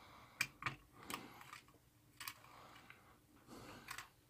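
A handful of faint, sharp clicks and light taps, unevenly spaced, from hands handling a red hook-up wire as it is hooked onto a switch terminal.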